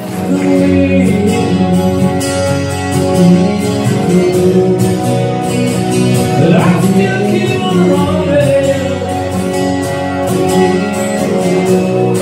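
An acoustic duo's song starting all at once: two acoustic guitars strumming chords, with a man singing over them.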